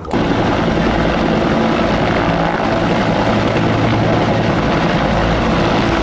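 Military helicopters running at full power, a steady rotor beat over engine noise.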